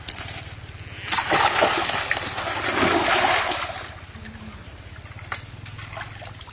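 Water splashing and sloshing for about three seconds, starting about a second in, then dying away.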